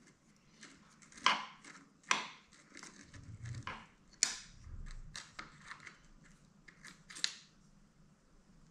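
Irregular metallic clicks and short scrapes of hand tools on the bike's shock mounting bolts and hardware, as the old rear shock is being unbolted from the mountain bike frame.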